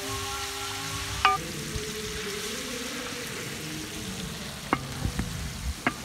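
Sliced onions sizzling in hot oil in a large metal pan as they are stirred with a spatula. The spatula knocks against the pan a few times, and the pan rings briefly after the knock about a second in.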